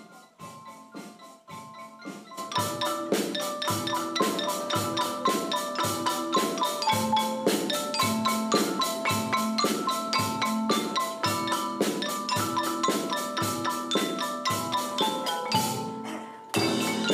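Middle school percussion ensemble playing: marimbas and xylophones ring out pitched notes over a drum kit and bass drum, keeping a steady beat. It starts softly, the full ensemble comes in about two seconds in, and after a brief drop near the end it comes back loud.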